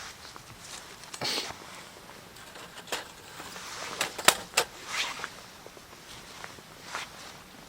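Irregular light clicks, knocks and short rustles, like small things being handled. There is a brief rustle just over a second in and a quick run of sharp clicks about four to five seconds in.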